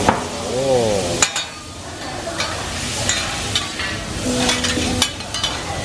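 Food sizzling on a teppanyaki griddle while metal spatulas scrape and clack against the steel plate, tossing mushrooms. For about the first second a wavering pitched tone sounds over it.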